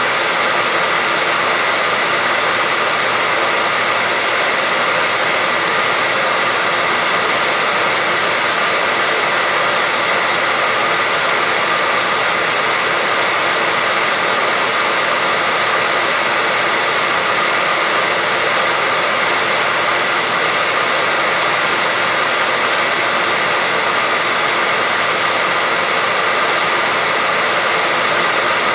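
Hair dryer running steadily: an even, unbroken blowing hiss with a faint whine in it, used as soothing white noise for a baby.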